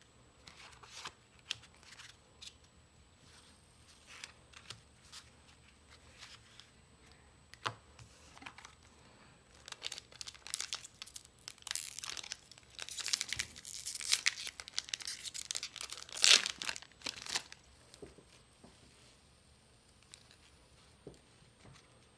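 Foil trading-card booster pack wrapper crinkling and being torn open. Scattered crackles at first, then dense tearing and crackling from about ten seconds in, loudest near sixteen seconds, before it dies down.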